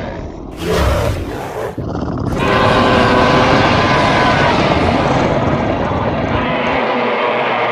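Monster roar sound effects built from stock dinosaur and creature roars. A short, harsh burst comes about half a second in, then a long, drawn-out roar starts at about two and a half seconds and holds to the end.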